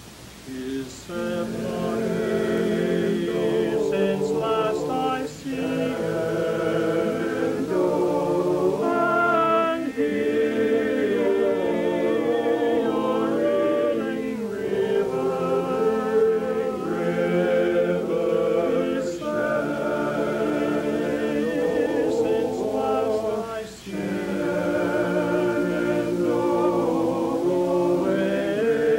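A vocal group singing a song in harmony, in phrases with short breaks about five seconds in and near the end.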